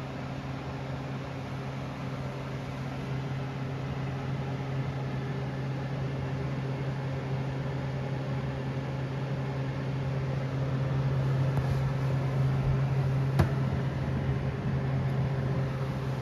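Homerunpet Drybo Plus pet drying box running, its blower fan making a steady low hum over a wash of air noise, growing a little louder past the middle. A single sharp click sounds about three-quarters of the way through.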